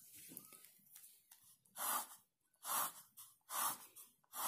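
Pen drawn across paper on a clipboard, ruling lines: four short swishing strokes about a second apart in the second half.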